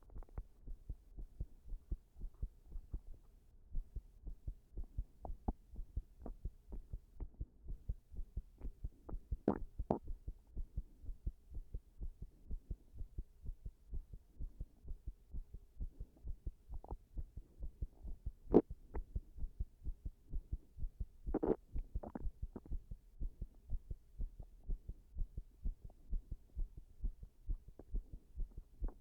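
Human heartbeat picked up close at the chest: a steady train of low lub-dub pulses, with a few louder sharp knocks scattered through it. The uploader says the rhythm turned irregular after a sleepless night standing pressed against a wall.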